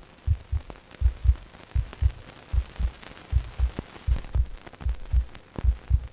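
Heartbeat sound effect: soft, low double thumps in a steady lub-dub rhythm, a bit more than one beat a second, over a faint hiss.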